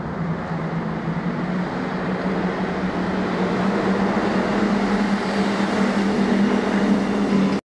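Car engine running at a steady pitch, slowly growing louder as the vehicles drive by; it cuts off abruptly near the end.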